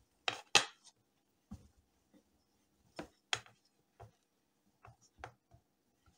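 Metal box grater shredding a block of butter into a pot of flour: short, irregular rasping strokes with quiet gaps between them, the loudest about half a second in and again about three seconds in.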